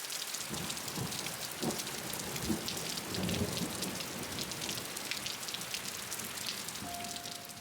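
Heavy rain falling and pattering on surfaces in a storm, dense and steady, with a low rumble a few seconds in.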